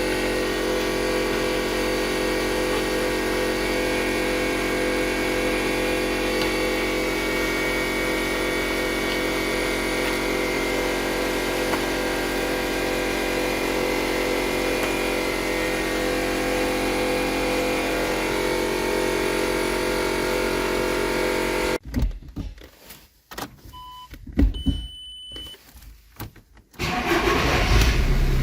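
Audi A4 B7 engine idling steadily, now that the water-damage no-start fault is fixed. About 22 seconds in it cuts off abruptly. A quiet stretch with a few clicks and short dashboard beeps follows, then the engine cranks and starts again near the end.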